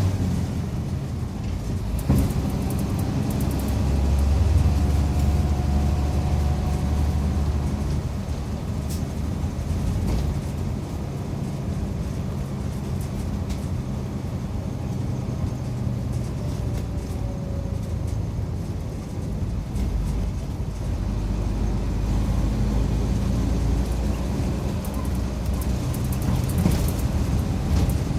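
Interior running sound of a Mitsubishi Fuso Aero Midi MK bus on the move: the diesel engine runs with its low note rising and falling as the bus drives, over steady road noise.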